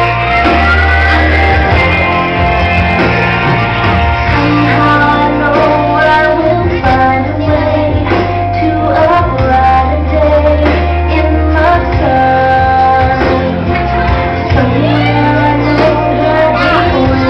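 Loud music with a singing voice over sustained bass notes that change every few seconds.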